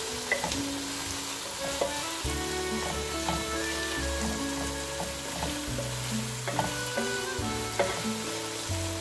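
Potato pieces frying in a tomato curry base, sizzling as a wooden spatula stirs and scrapes them round a nonstick pan, with a few sharp knocks of the spatula. Soft background music with held notes runs underneath.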